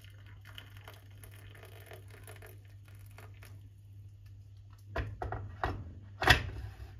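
Hot water poured from a glass electric kettle into a porcelain teacup for about three and a half seconds. A few sharp knocks follow about five seconds in, the last one the loudest.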